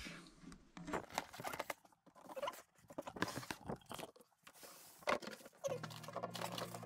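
Cardboard packaging being handled and opened: irregular crunches, scrapes and knocks as the cardboard box is worked open and the inner cardboard tray slid out.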